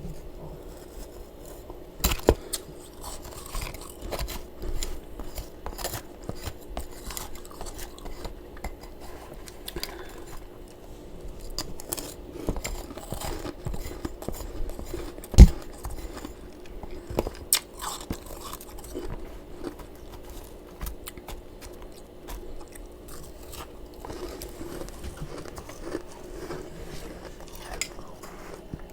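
Close-up biting and chewing of freezer frost: irregular crisp crunches throughout, with one much louder crunch about halfway through.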